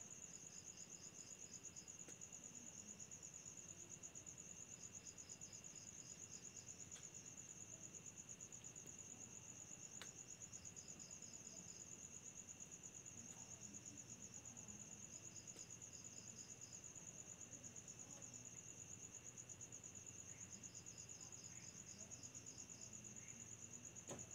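Faint night chorus of crickets: one fast, unbroken pulsing trill, with a second insect adding short runs of chirps about every five seconds over a fainter steady lower tone.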